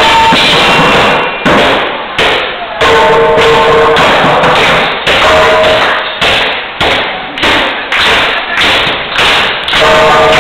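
Pots and pans played as drums: metal strikes on a large aluminium stockpot and frying pans, loud and distorted. At first a dense din, then from about a second in separate heavy strikes about twice a second, each ringing out, until the din returns near the end.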